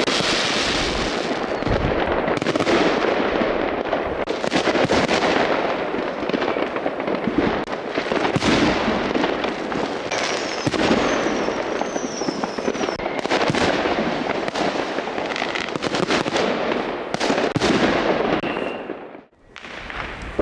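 New Year's Eve fireworks: a dense, continuous crackle of many overlapping bangs and firecracker pops, with a few short whistles from rockets midway. The sound drops out suddenly for a moment near the end.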